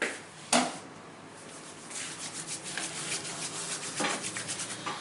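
Hands rubbing skin during a back massage: quick, repeated rubbing strokes from about two seconds in, with one sharp smack about half a second in.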